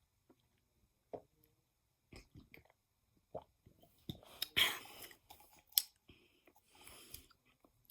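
A person sipping and swallowing a sports drink, with small mouth clicks and smacks and a louder noisy sound about halfway through.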